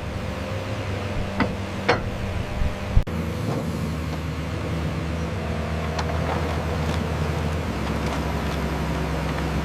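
Heavy diesel construction machinery running steadily, with a few sharp metallic knocks; the loudest comes about 3 s in. The low engine note thickens near the end.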